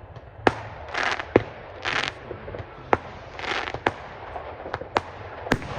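Fireworks display: a string of sharp bangs, about one a second, with short hissing bursts between them.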